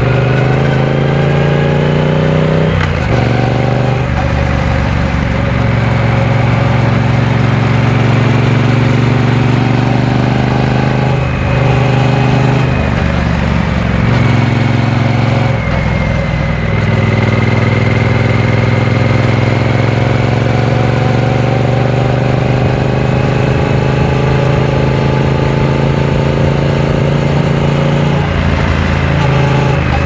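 Triumph Speed Twin 900's parallel-twin engine running under way with the motorcycle being ridden. Its note climbs steadily and breaks and drops back briefly a few times.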